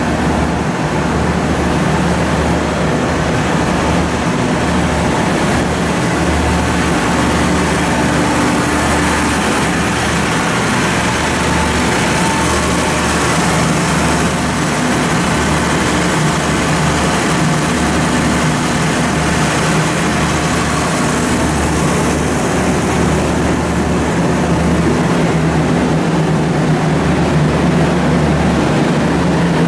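Steady rumble and hiss of a State Railway of Thailand sleeper train, with a low throb that comes and goes irregularly and grows slightly louder near the end.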